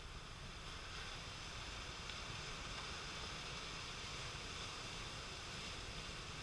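Ocean surf washing over a rocky shore, a steady rushing noise, with a low wind rumble on the microphone.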